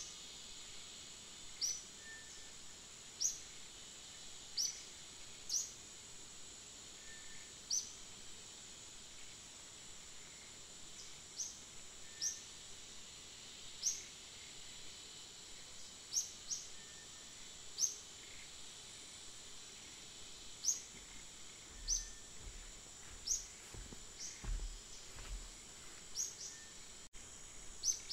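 Natural outdoor ambience: a steady high-pitched insect drone, with short rising bird chirps repeating every second or two. A few low bumps come near the end.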